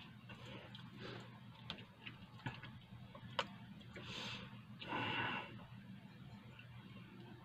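Faint scattered clicks, about one a second, over a low steady hum, with a short rustling noise about five seconds in.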